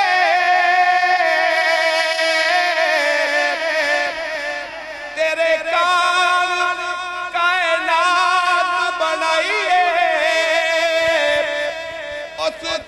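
A man singing a rubai, a devotional quatrain, solo into a microphone. He holds long, wavering high notes, with a brief drop in loudness about five seconds in.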